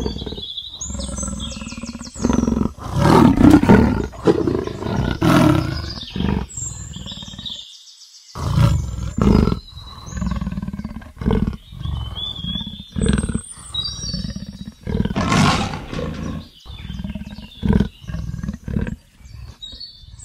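Leopard roaring and growling in a series of repeated low strokes, loudest a few seconds in, then shorter strokes following one another through the rest. Birds chirp faintly in the background.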